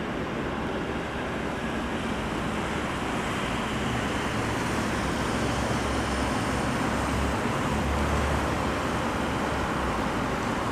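Diesel engine of a DR1A diesel multiple unit running under power, a steady rumble whose low throb grows louder about seven seconds in, with a faint high whine.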